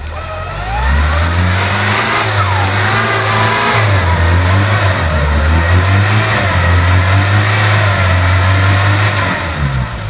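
Off-road 4x4's engine revving hard under load as it crawls through mud, rising about half a second in, held high with repeated rises and dips, then dropping back near the end.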